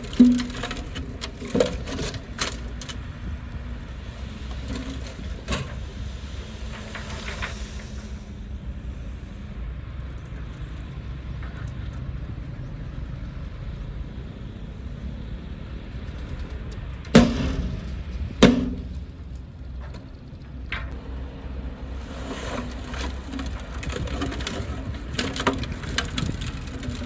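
Heavy diesel earthmoving machine running steadily with a low rumble, broken by several sharp cracks. The two loudest cracks come about 17 and 18 seconds in.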